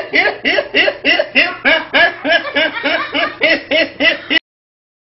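A young man laughing uncontrollably in a rapid run of high-pitched voiced bursts, about four a second, each rising and falling in pitch; it cuts off abruptly near the end.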